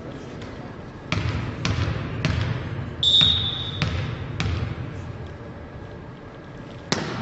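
A volleyball is bounced on the hardwood floor of a sports hall, about twice a second, while the player readies a serve. A referee's whistle blows once, briefly, about three seconds in. Near the end comes one sharp slap, the ball being struck for the serve.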